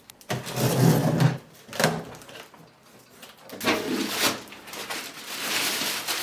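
Handling noise: a series of knocks and clunks with rustling, scraping slides between them, the loudest knocks about two seconds apart.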